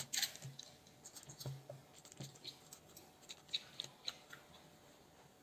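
Fingers pressing raw bread-dough balls flat on a parchment-lined baking tray: faint, scattered soft pats and light paper rustles and ticks.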